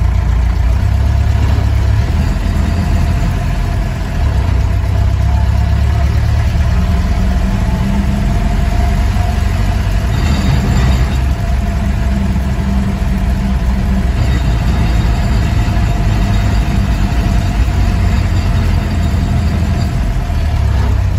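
1948 Willys truck's engine running steadily at low speed as the truck drives along, heard from inside the cab as a low, even hum. A short burst of hissy noise joins it about halfway through.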